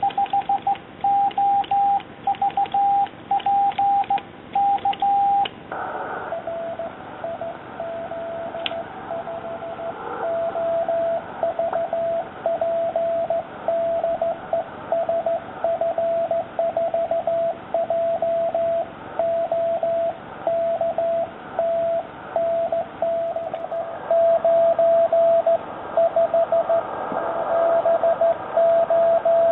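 Morse code tones. For the first five seconds or so, a homemade push-button Morse key sends the end of a call, heard as a clean sidetone beep. The radio's receiver then takes over with the other station's Morse reply, a slightly lower beep keyed over shortwave band hiss that grows louder near the end.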